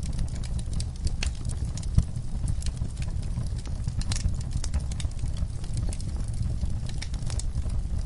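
Wood fire burning in a fireplace: a low steady rumble with irregular crackles and pops, one louder pop about two seconds in.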